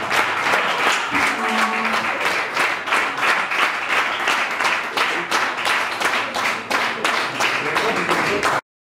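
Audience applauding, dense clapping with voices calling out in the crowd, until it cuts off abruptly near the end.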